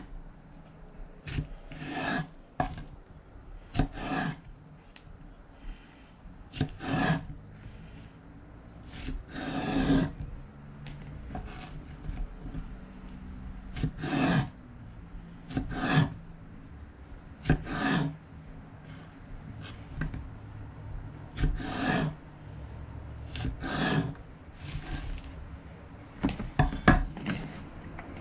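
Kitchen knife trimming okra pods on a bamboo cutting board: irregular knocks and scrapes of the blade against the wood, one every second or two.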